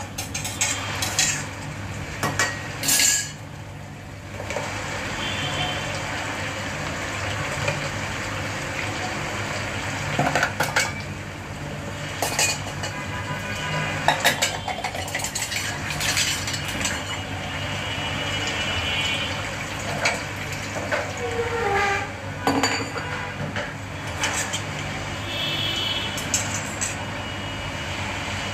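A metal spoon scraping and clinking against an aluminium pot while stirring a fish curry, in scattered short knocks over a steady low hum.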